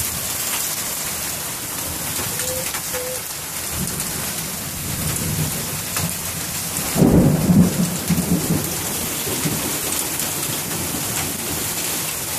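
Heavy rain pouring down steadily in a storm, with a loud low rumble lasting about a second and a half, about seven seconds in.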